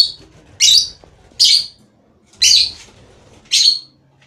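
Lovebird calling: five loud, short, high-pitched calls, roughly one a second.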